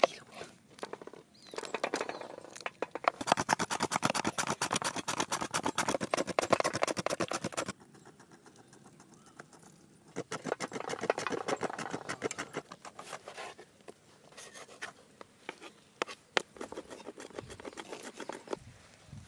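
Hands mixing raw chicken pieces with masala paste in a large vessel: a rapid wet clicking and squishing in two spells, a long one in the first half and a shorter one after a short pause.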